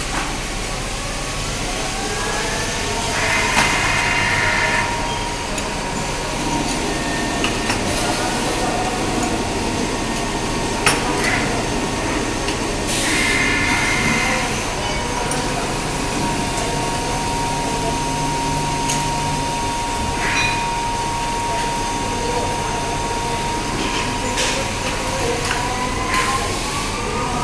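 CNC lathe running in a machine shop. Its spindle whine rises in pitch at first, holds steady for a long stretch, then climbs again near the end. Two brief louder bursts of noise come about three and thirteen seconds in, with a few metallic clicks.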